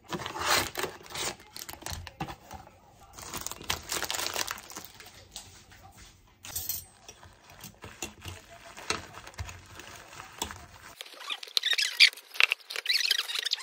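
Plastic packaging rustling and crinkling as a bag of grated Parmesan is shaken over food. Near the end come sharper, denser crinkles of plastic bags being handled.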